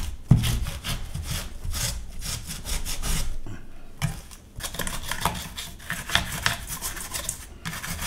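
Microfibre cloth rubbed briskly back and forth over a washing machine's plastic detergent dispenser housing, cleaning it in quick repeated strokes, with a brief pause about three and a half seconds in.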